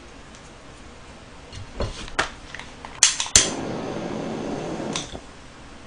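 A few light knocks, then two sharp clicks of a butane torch's ignition about three seconds in, and the torch flame burning with a steady hiss for about a second and a half before it is shut off, flame-toasting a KitKat bar.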